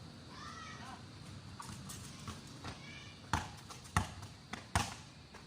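A basketball bouncing on a hard court: four sharp bounces in the second half, with faint high voices calling out before them.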